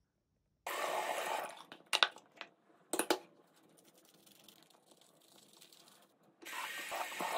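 Water running from a bathroom sink tap for about a second, then two sharp knocks about a second apart and a quiet stretch, with the tap running again near the end.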